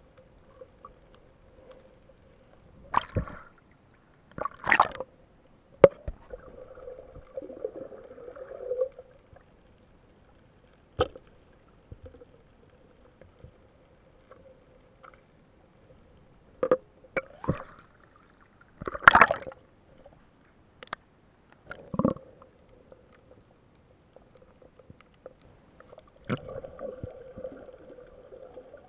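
Muffled water noise around an underwater camera: about nine short, irregular splashes or knocks as it moves through seagrass, over a faint steady hum.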